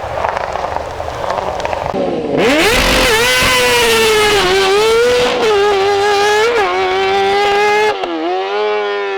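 Hillclimb race car at full throttle, its engine coming in loud about two seconds in, its pitch dipping briefly and climbing back several times. Near the end it suddenly turns quieter and duller as it goes past and away.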